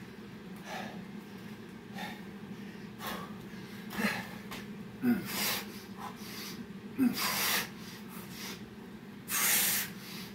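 A man's forceful breathing during burpees: a series of sharp exhales a second or so apart, the longest and loudest near the end.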